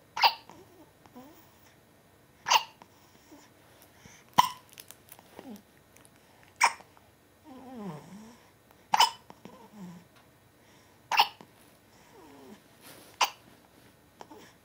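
A series of seven sharp hiccups, roughly every two seconds, with soft vocal sounds that slide in pitch between them.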